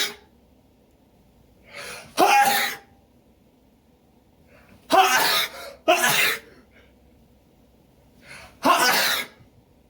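A person's allergy sneezing fit, the pollen allergy making them sneeze again and again: four loud sneezes, each after a short, quieter build-up. One comes about two seconds in, two come close together in the middle, and the last comes near the end.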